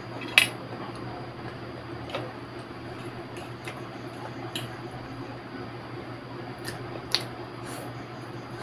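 Metal fork clicking and scraping against a plate of noodles: a handful of sharp clinks, the loudest about half a second in and another near the end, over a steady low hum.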